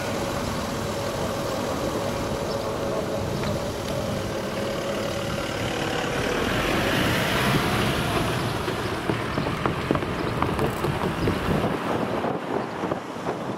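Road traffic at a railway level crossing: car and pickup-truck engines and tyres, with short knocks in the second half as wheels roll over the rails. At the start, a faint whine from the departing electric train fades away.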